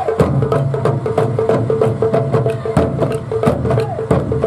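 Japanese taiko drum ensemble playing a fast, even rhythm of sharp strikes, with a held pitched note running underneath.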